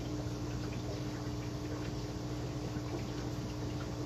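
A steady low hum with faint, scattered light ticks over it.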